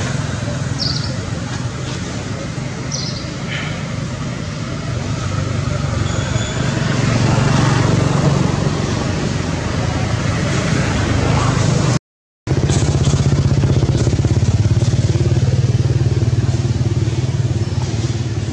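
An engine running steadily close by, like a motorbike or other road vehicle idling, with a low even hum. The sound cuts out for a moment about twelve seconds in.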